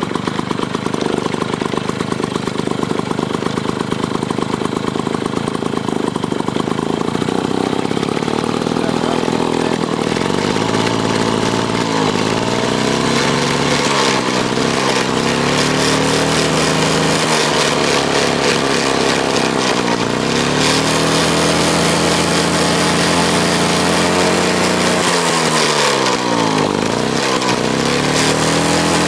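Clinton two-stroke lawn mower engine running steadily and smoothly. From about a third of the way in its tone bends and wavers up and down.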